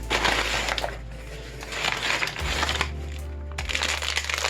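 Packaging crinkling in short bursts as it is handled, over background music with a steady low bass line that changes note partway through.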